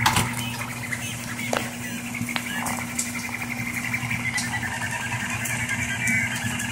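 Rostock MAX delta 3D printer printing: its stepper motors whine in quick, shifting pitches as the print head moves, over a steady hum. A knock at the start and a couple of faint clicks.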